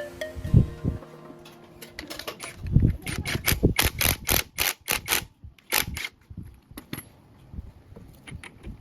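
Sharp metallic clicks and taps of tools and engine parts being handled, in a quick run of about three or four a second for a few seconds, after a couple of dull thumps. Fainter ticks follow.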